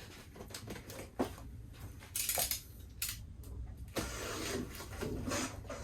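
Cardboard box and packaging being handled for an unboxing: faint scattered clicks and a few short rustling scrapes, the loudest about two seconds in.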